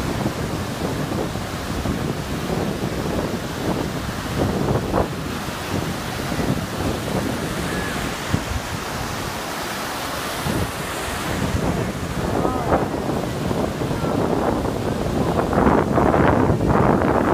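Ocean surf breaking and washing up the beach, with wind buffeting the microphone. It grows louder and rougher near the end.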